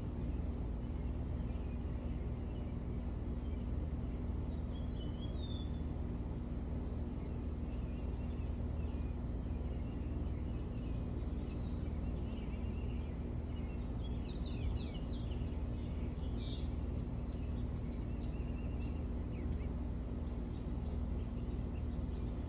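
Steady low background hum, with a few fixed tones in it, under scattered chirps and short, quick trills of small songbirds that come and go, busiest in the second half.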